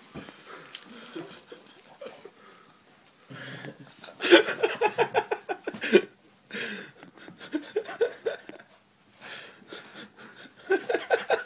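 People laughing in bursts of rapid pulses: the loudest about four to six seconds in, another around eight seconds, and another near the end.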